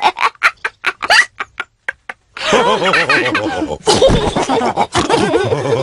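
Cartoon pig characters laughing with pig snorts. A run of short laughing bursts breaks off briefly about two seconds in, then several voices laugh together.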